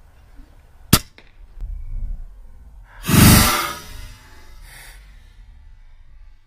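A single sharp shot from a suppressed .22 Umarex Gauntlet PCP air rifle about a second in, followed about two seconds later by a louder rushing burst lasting about half a second.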